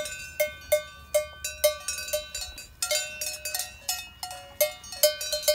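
A cowbell on a grazing cow's neck clanking irregularly as the animal walks and moves its head, a few strokes a second, each ringing briefly.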